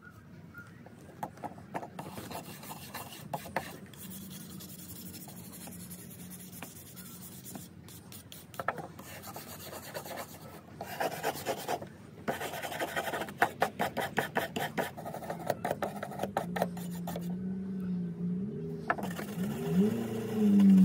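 Quick back-and-forth abrasive strokes of hand rubbing or filing on a vintage draw knife's steel during rust clean-up, coming in runs of rapid strokes. Near the end a louder low hum with a wavering pitch comes in.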